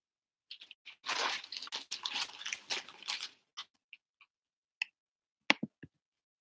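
Close rustling and crackling handling noise, like sleeves and hair brushing near the microphone, for about two seconds. Then a few light clicks and a quick run of sharp taps near the end, the loudest sound.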